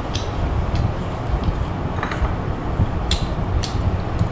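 Steady low rumbling background noise, with a few faint light clicks of a metal spoon against a small ceramic bowl.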